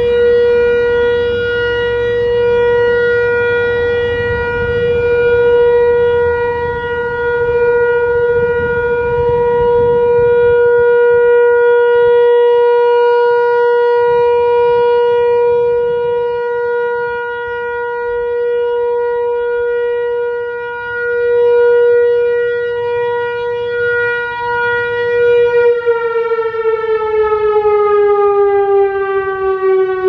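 Whelen WPS-4004 electronic speaker siren sounding a steady single-tone Alert. The tone swells and fades as the rotating horn array sweeps past. Near the end the pitch starts to fall as the siren winds down.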